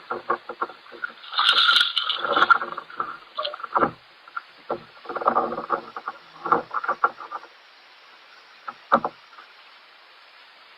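Irregular knocks, clicks and rattles of gear being handled in a kayak, muffled through a waterproof camera case. The busiest stretches are about two seconds in and again around five seconds; it settles near the end apart from one more knock.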